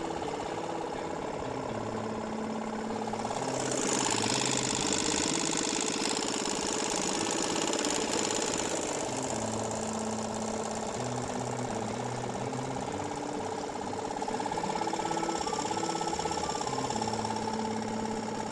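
Small outboard motor running steadily, pushing a canoe along at trolling speed, with a rushing hiss rising over it for several seconds from about four seconds in.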